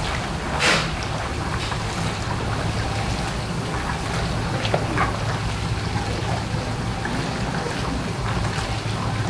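Tulumba dough pieces deep-frying in a large pan of oil, the oil sizzling and bubbling steadily, over a steady low hum. A short louder rush of sizzle comes a little under a second in.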